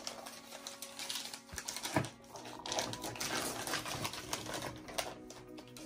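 Gift wrapping paper crinkling and tearing as a small boxed present is unwrapped by hand, an irregular run of crackles and rips.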